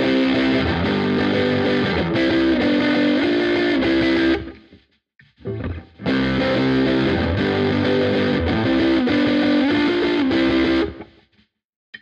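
Harley Benton SC-200 electric guitar on its bridge pickup, played through GarageBand's Double Driven amp simulation with heavy grunge-style distortion. It plays a chordal riff twice, each phrase about five seconds long and cut off sharply, with a short silent gap between them and another near the end.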